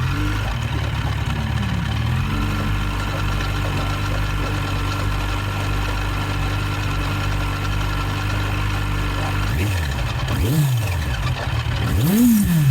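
Yamaha FZ1 Fazer inline-four engine idling steadily, then blipped a few times in the last three seconds, its pitch rising and falling with each blip. It carries a strange new engine noise that the owner cannot place, heard weeks after fitting a new cam chain tensioner.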